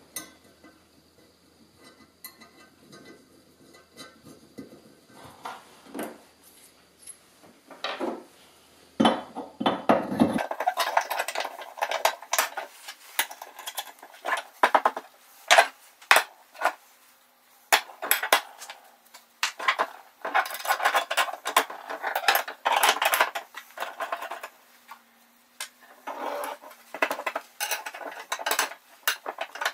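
Steel square tubing and flat strap clinking and clattering against each other and the metal bench as the parts of a nut cracker are handled and fitted together. The knocks are sparse at first and become frequent after about ten seconds.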